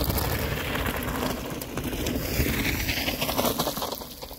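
Mountain bike tyres crunching over loose gravel as a rider pedals past close by, the crunching fading as the bike moves away near the end.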